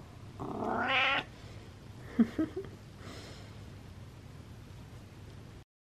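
Domestic cat giving one drawn-out meow of just under a second, wavering in pitch. About two seconds in come a few short sharp clicks, the loudest of them the single loudest moment.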